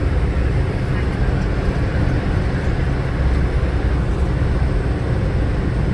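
Steady road and engine rumble of a car driving at highway speed, heard from inside the cabin.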